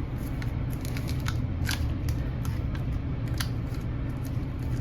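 Light clicks and crackles of small items being handled, as thread spools from an upholstery stitching repair kit are sorted through, over a steady low hum.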